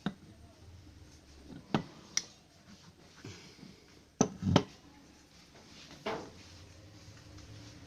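Several sharp, irregular knocks and clicks of metal parts and hand tools being handled while an electric hand planer is taken apart.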